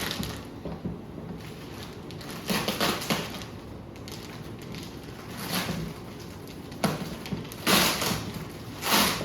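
Packaging wrap rustling and crinkling in several short bursts as the model jet's fuselage sections are unwrapped by hand.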